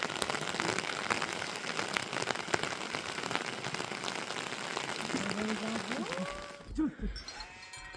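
Steady rain pattering, with many small drops ticking on a surface. A few short calls come in near the end, just as the rain noise cuts off suddenly.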